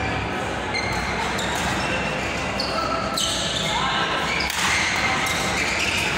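Badminton rally: rackets smacking the shuttlecock and players' shoes squeaking on the court mat, echoing in a large hall.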